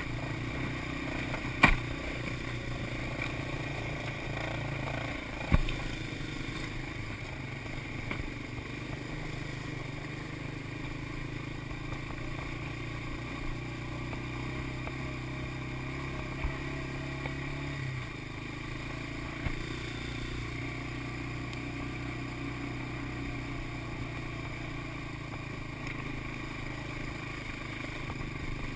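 Small ATV engine running steadily, with two sharp knocks in the first few seconds and a slight change in engine note about two thirds of the way through.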